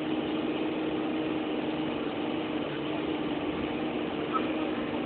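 Bus engine running steadily under way, heard from inside the cabin with road noise; a brief tick near the end.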